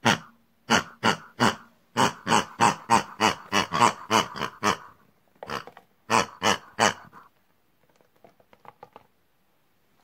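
Short pig-like oinks and grunts in quick runs, about three a second, with a brief break in the middle. Faint light plastic ticks follow near the end.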